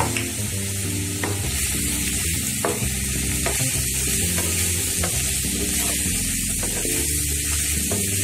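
Chopped onions and ginger-garlic paste sizzling in hot mustard oil in a kadhai while a spatula stirs them, with a few short scrapes and knocks of the spatula against the pan.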